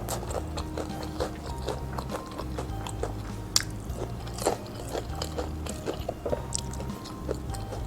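Close-up bites and chewing of crispy-skinned fried chicken, the skin crunching in many short sharp cracks, the loudest two near the middle. Soft background music runs underneath.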